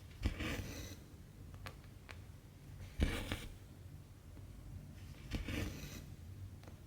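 Embroidery thread drawn through cross-stitch fabric in three swishes, near the start, about three seconds in and near the end, each opening with a soft knock, with a couple of faint ticks between them.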